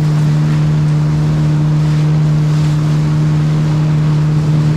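Yamaha WaveRunner jet ski's engine running steadily under way, a constant drone with rushing water and wind noise over it.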